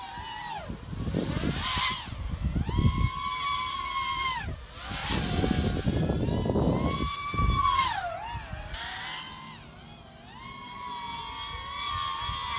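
Brushless motors of a 4-inch FPV quadcopter whining, the pitch rising, holding and falling again several times as the throttle is worked.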